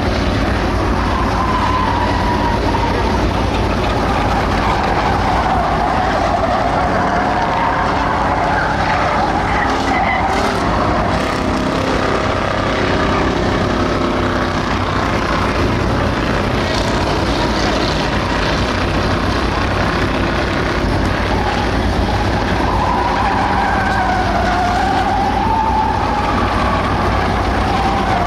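A field of Ford Crown Victoria V8 stock cars running together round a dirt oval, their engines rising and falling in pitch as they go through the turns.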